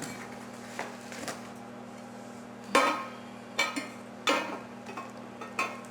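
Metal fireplace tools clinking and clattering against each other as they are unpacked: about four sharp clinks, the first about three seconds in and the loudest, over a faint steady hum.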